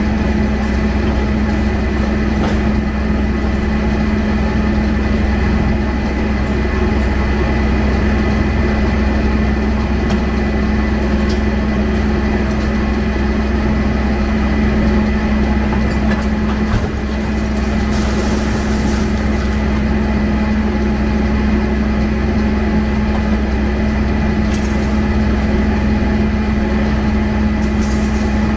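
Hyundai crawler excavator's diesel engine running with a steady, even hum, with a few brief clatters of debris landing in the steel dump truck bed.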